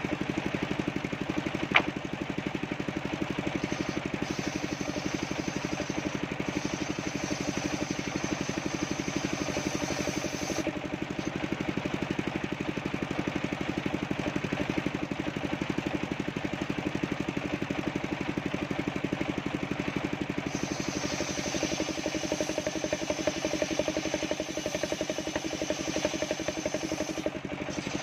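Homemade circular sawmill ripping coconut-wood planks: a steady, fast-pulsing engine drone with the blade running, and a higher whine of the cut that comes in twice as boards are fed through. One sharp click about two seconds in.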